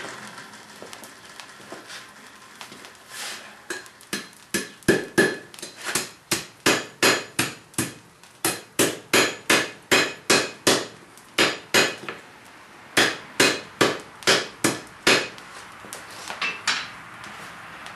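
Hand hammer striking a hot, bent steel bolt on an anvil, about two blows a second in runs with short pauses, each blow ringing briefly: the bolt is being straightened at forging heat.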